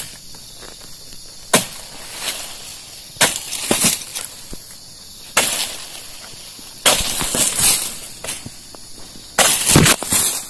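A dodos, a chisel blade on a long pole, jabbed again and again into the woody frond bases of an oil palm to cut the fronds away: about seven sudden cutting strikes at irregular intervals, the later ones longer and drawn out as the frond cracks off.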